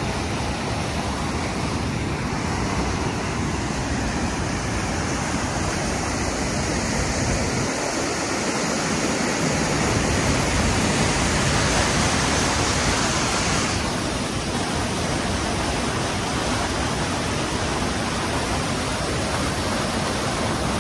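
Rain-swollen small river rushing through a narrow concrete channel under a road, churning into white water: a steady, loud rushing noise of floodwater after heavy rain.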